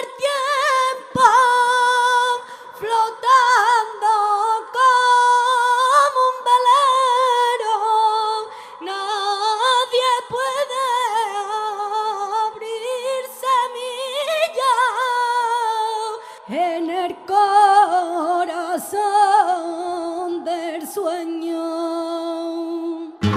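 A woman singing unaccompanied in flamenco style, in long, heavily ornamented phrases that waver around each note. The line sits high at first and drops to a lower register about two-thirds of the way through.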